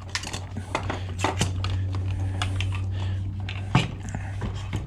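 Irregular small metal clicks and knocks from an ice maker being handled and taken apart, over a steady low hum.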